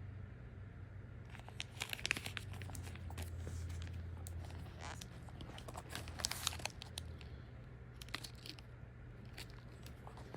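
Product packaging being handled and opened: plastic and paper wrap crinkling and tearing in several short flurries, over a low steady hum.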